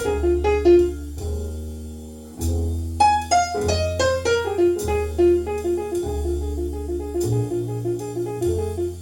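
Jazz piano trio recording: acoustic piano plays falling runs of notes, then a passage of quickly alternating repeated notes, over long, low bass notes.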